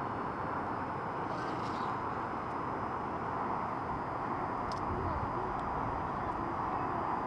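Steady, even hiss of distant road traffic carried up to a hilltop, with a few faint ticks.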